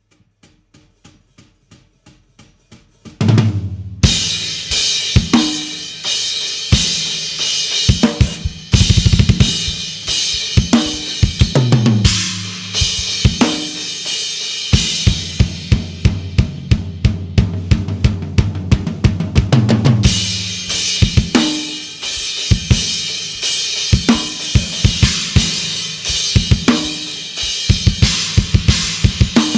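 A rock drum kit playing a fast song part. Soft, evenly spaced hits grow louder for about three seconds, then the full kit comes in loud, with bass drum, snare and crashing cymbals.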